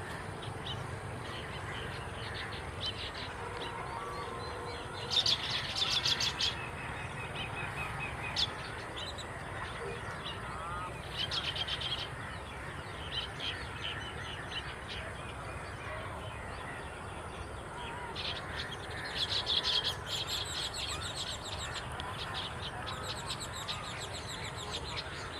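A flock of baya weavers chattering: bursts of rapid, high chirps that come and go over a steady outdoor background hiss, the loudest bursts about five seconds in, about eleven seconds in, and around twenty seconds in.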